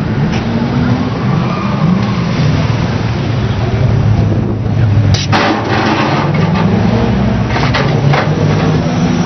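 Lowered pickup truck's engine running as the truck rolls slowly past, its pitch rising and falling with the throttle. Sudden short rushing noises come about five seconds in and twice more near the end.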